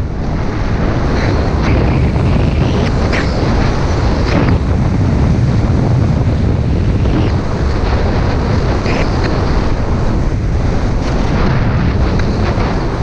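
Wind from a fast downhill ski run buffeting the camera microphone, a heavy steady rumble, with the rasp of ski edges scraping the snow in turns every second or two.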